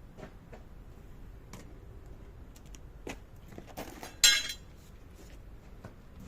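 Metal parts or tools clinking: scattered small clicks and knocks, then one loud ringing metallic clink about four seconds in.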